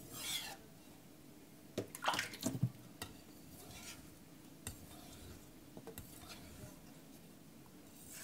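Aogami carbon-steel knife blade stroked across a wet Kitayama 8000 finishing whetstone: a couple of soft gritty swishes near the start and around two seconds in. After them come fainter strokes, light clicks and water dripping into a steel sink.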